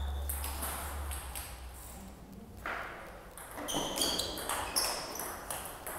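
Table tennis ball clicking off the paddles and table as a point starts, a run of sharp ticks about three and a half seconds in.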